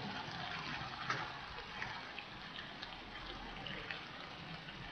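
Steady rain falling: an even hiss with individual drops ticking here and there.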